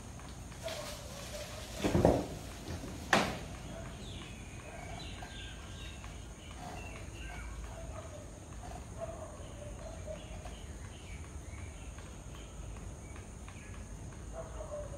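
Faint bird chirping over a steady outdoor background, broken near the start by two sharp knocks about a second apart.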